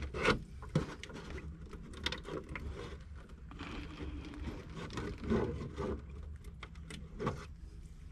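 Irregular small clicks, scrapes and light patter from hands working a fitting at the open end of a copper water pipe as the line finishes draining.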